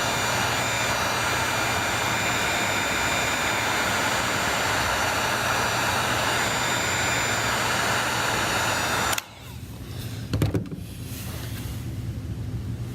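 A small electric blower motor running steadily with a faint whine, cut off suddenly about nine seconds in, followed by a softer hum and a few light clicks.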